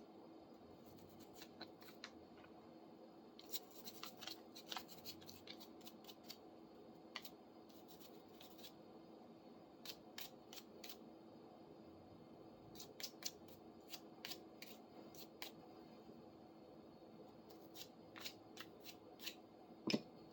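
Faint, scattered clicks and scrapes of a pair of de-rusted steel pliers being worked open and shut at the joint, over a low steady hum.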